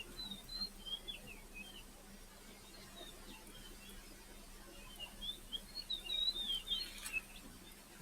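A bird chirping and twittering in quick, high, sliding notes, in two bouts: a short one near the start and a longer, busier one in the second half.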